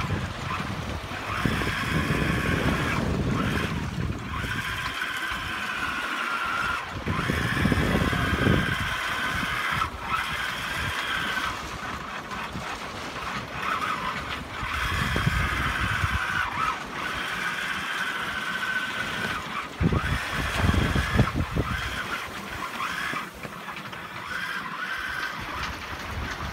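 Wind buffeting the microphone in gusts aboard a sailing yacht under way, over the rush of the sea. A thin wavering whine comes and goes every few seconds.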